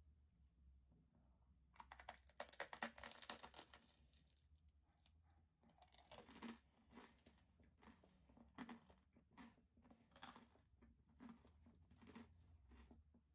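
Someone bites into a hard-toasted garlic-butter baguette toast: a dense, crackling crunch for about two seconds, then faint crunches as it is chewed, about one a second.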